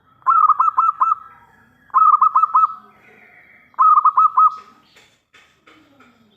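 Zebra dove (local perkutut) cooing: three quick phrases of four or five rapid, rolling coos, each about a second long and about two seconds apart. A few faint clicks follow near the end.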